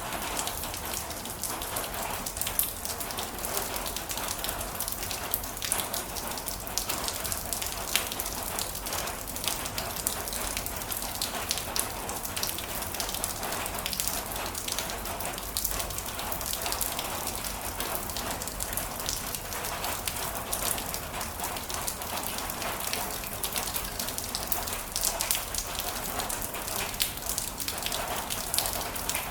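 Heavy rain falling and pattering on a surface, a steady hiss dotted with many small sharp drop impacts.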